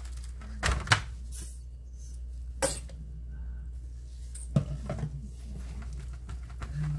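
Squeeze bottle of yellow mustard spurting in short sputtering bursts, about three of them, as it is squirted onto raw steaks, with gloved hands rubbing the meat in a metal pan. A low steady hum runs underneath.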